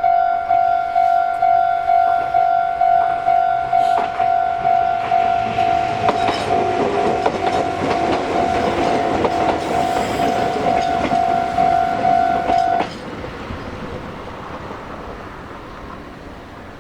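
Japanese level crossing's electronic warning bell ringing in a steady 'kan-kan' about twice a second while a Meitetsu Gamagori Line train passes over the crossing with clattering wheels. About 13 seconds in the bell cuts off suddenly as the crossing clears, leaving the fading rumble of the departing train.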